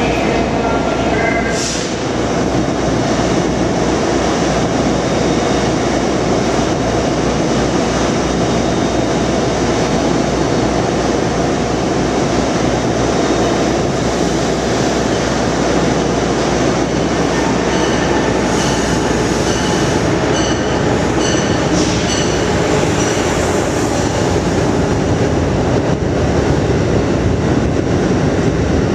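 Amtrak Acela Express trainset running through the station, a loud steady rumble of wheels on rail with short high wheel squeals about two-thirds of the way in.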